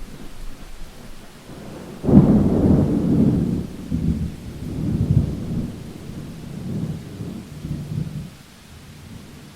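Thunderclap: a sudden loud crack about two seconds in that rolls on as a deep rumble in several swells for some six seconds, then dies away to a steady rain hiss.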